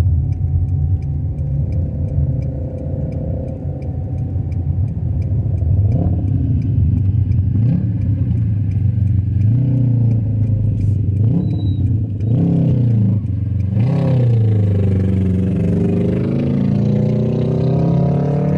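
Volkswagen SpaceFox's engine heard from inside the cabin while driving. Its pitch rises and falls several times in the middle, then climbs steadily near the end as the car accelerates. The turn signal ticks faintly and regularly.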